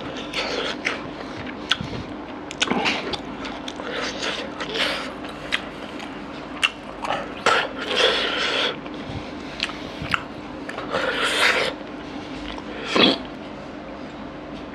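Close-miked eating sounds: fingers scraping and scooping spicy mutton curry and rice across a wooden board, with chewing and lip smacks heard as many short clicks. Two longer noisy sounds come about eight and eleven seconds in.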